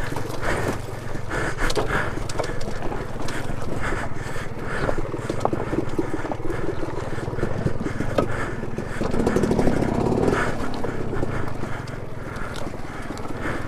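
Alta Redshift MXR electric dirt bike ridden over rough, rocky trail: the bike rattles and knocks, with many short knocks from tyres and suspension over rocks above a steady low drivetrain hum.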